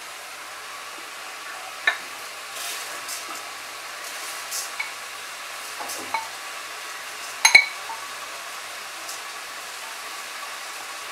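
Spice paste sizzling steadily in oil and ghee in an aluminium kadai, with a few spatula scrapes and taps. Partway through, washed rice is tipped in from a plastic container. A sharp clink about seven and a half seconds in is the loudest sound.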